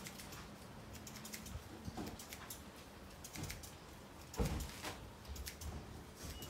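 Barber's scissors snipping hair, a quick irregular run of faint small clicks, with a single soft thump a little past four seconds in.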